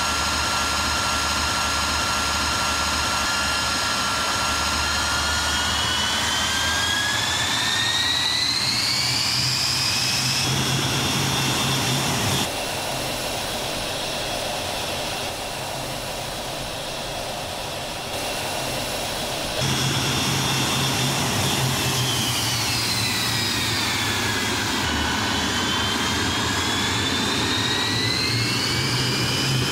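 Jet whine from an L-39 Albatros trainer's AI-25TL turbofan engine running on the ground, its pitch climbing as the engine spools up. Later the pitch falls and rises again, with a quieter stretch in the middle.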